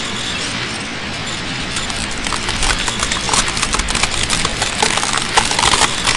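A steady noisy hiss with rapid crackling and clicking that grows denser from about two seconds in.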